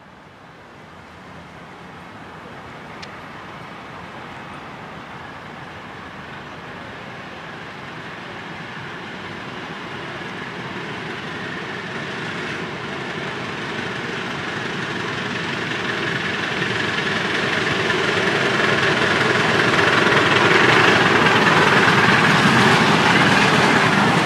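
Miniature railway train hauling passenger carriages, approaching and passing close by, its running sound growing steadily louder as it nears.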